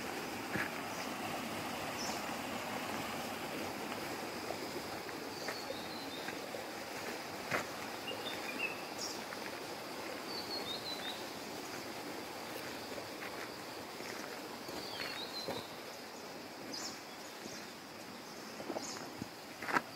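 Rural outdoor ambience: a steady background hiss with a bird repeating a short, quick falling call every few seconds. A few footsteps or clicks come near the end.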